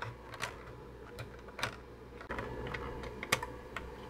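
A handful of separate plastic clicks from the keys of a Tandy 102 portable computer being pressed, spread unevenly over a few seconds, over a faint steady hum.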